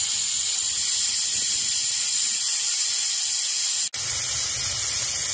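Compressed nitrogen hissing steadily from a cylinder through a hose into an AC refrigerant line set, blowing the RX-11 flush out of the old lines. The hiss breaks off for a split second about four seconds in, then resumes with a faint low hum under it.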